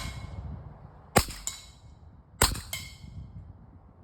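A .25 caliber PCP air pistol (AEA HI-Power Super Short) fires twice, about a second and a quarter apart, each shot a sharp crack. About a third of a second after each shot comes the faint clang of the pellet hitting a hanging metal frying pan downrange, which rings on briefly.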